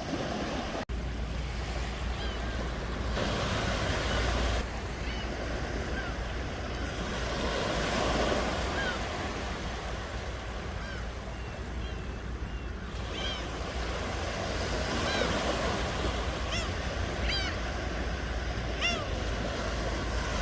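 Ocean waves washing onto a shore, the surf swelling and easing every few seconds, with short bird calls repeating over it and a steady low rumble underneath.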